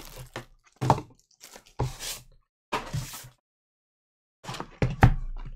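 Cardboard trading-card box handled with gloved hands: short scrapes and rustles as the inner box slides out of its cardboard sleeve, with sharper knocks about a second in and near the end.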